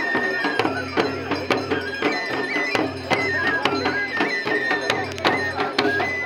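Live traditional folk music: a high wind instrument plays a melody that steps between held notes over steady drum beats.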